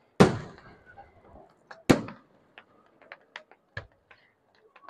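Fireworks display bursting: two sharp, loud bangs about a second and a half apart, each trailing off, followed by a scatter of smaller pops and crackles and another bang a little later.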